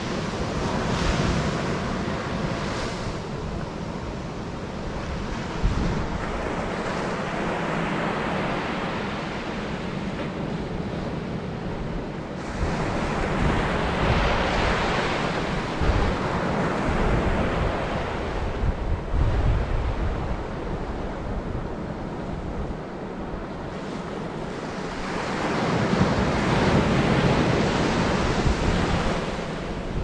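Surf breaking and washing up a sandy beach, swelling louder about halfway through and again near the end, with strong wind buffeting the microphone in low rumbles.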